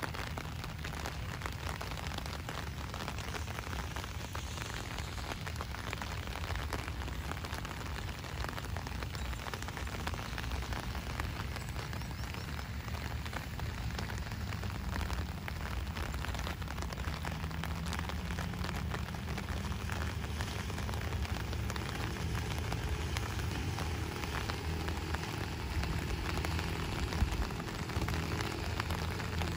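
Steady rain falling, with many close raindrops pattering over a low rumble, and one sharper tap near the end.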